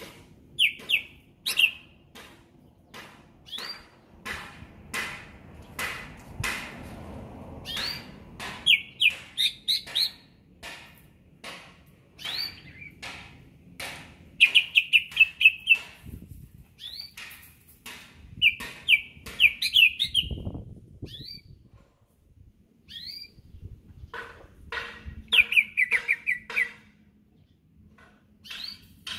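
Caged cucak ijo (greater green leafbird) singing in bursts of quick trilled phrases and sharp chirps, with many sharp clicking notes between them.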